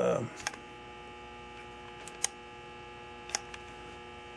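Steady electrical hum, with a short burst of noise dying away right at the start and a few light clicks later on.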